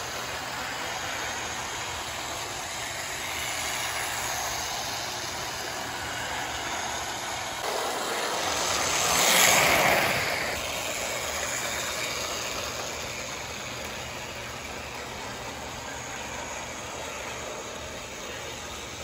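1963 Hornby Tri-Ang Davy Crockett model locomotive running steadily around a loop of track, its small electric motor and wheels making a continuous running noise. The sound swells briefly about halfway through as the train passes close by.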